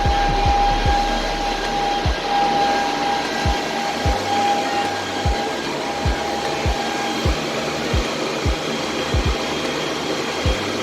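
WhatsMiner M30S++ ASIC miner running under load, its cooling fans making a loud, steady whoosh with a high fan whine, described as loud as shit. Irregular soft low bumps come through about once or twice a second.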